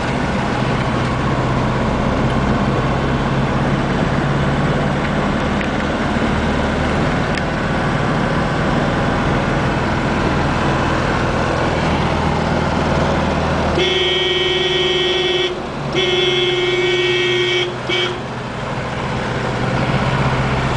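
Car engine and road noise heard from inside the cabin, steady throughout. Past the middle the car's horn is held in two long blasts of about a second and a half each, followed by a short toot.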